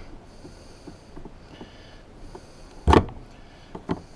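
Hand work on a car's fuel line fittings: a few light clicks and one sharp knock a little under three seconds in, with short faint hisses before it.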